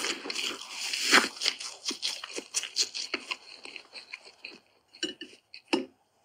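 Close-miked ASMR crunching and crinkling: a dense run of crisp crackles that thins to a few scattered clicks and stops just before the end.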